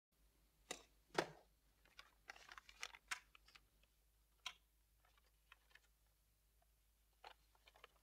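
Faint, scattered rustles and small knocks of paper and a book being handled at a wooden desk in a quiet small room, the loudest about a second in.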